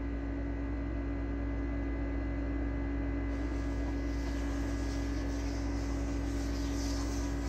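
Steady hum: a constant low-mid tone over a low rumble, with a faint high hiss that comes in about three seconds in.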